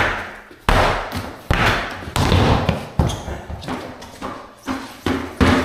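Large truck wheels with off-road tyres dropped, bouncing and rolling across a concrete floor: a run of heavy thuds, roughly one every half second to a second, each ringing briefly.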